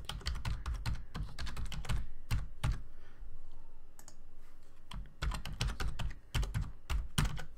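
Computer keyboard typing: a quick run of keystrokes, a sparser pause of about two seconds, then a second run of keystrokes.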